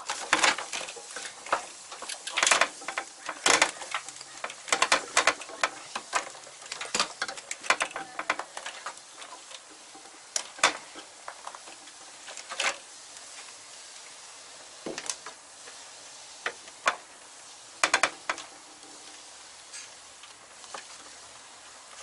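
VW Corrado engine-bay wiring harness being worked by hand: plastic loom and connectors rustling, scraping and clicking in quick irregular bursts, busy for the first several seconds, then thinning out to occasional sharp clicks.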